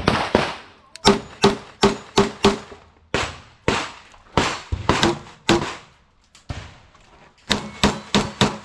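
Beretta pistol fired rapidly: a long run of shots in pairs and short strings about a third of a second apart, with brief pauses between strings and a longer pause about six seconds in.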